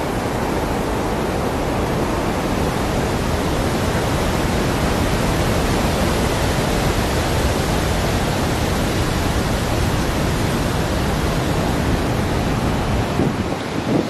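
Steady, even rush of falling water from the Great Falls of the Passaic River, a large waterfall, holding level throughout without a break.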